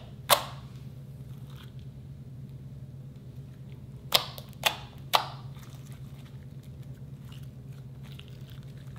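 Slime being poked and stretched by hand, with sharp air-bubble pops: one just after the start, then three about half a second apart around four to five seconds in, and faint soft crackling between, over a steady low hum.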